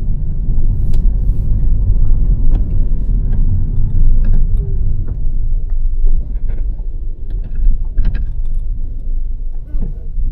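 A 2006 Honda Civic with a 1.8-litre petrol engine being driven: a steady low rumble of engine and road noise, with scattered small clicks and rattles.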